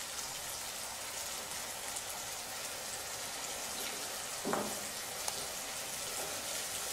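Tomato-puree curry sauce sizzling steadily in a pan while being stirred with a wooden spoon, with a short voice-like sound about four and a half seconds in.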